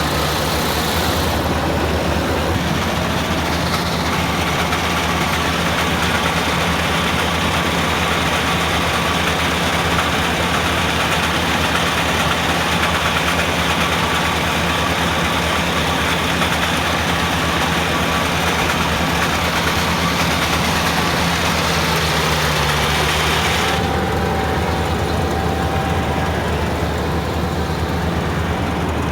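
A heavy engine running steadily. About three-quarters of the way through, the hissing upper part of the sound drops away while the low engine note carries on.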